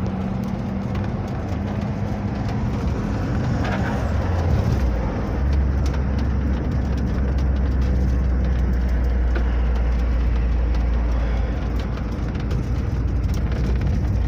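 Volkswagen Kombi van driving along a city road: steady engine hum and road noise, with the low engine drone changing to a deeper, steadier hum about five seconds in.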